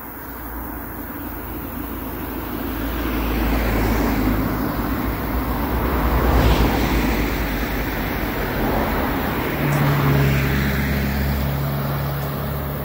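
Cars passing on the road alongside. The tyre noise swells to a peak about four to seven seconds in, then a second vehicle comes by about ten seconds in with a steady engine hum that slowly fades.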